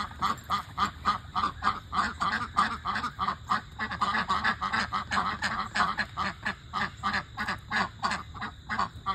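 A flock of ducks quacking, many rapid, overlapping quacks, several a second without a break.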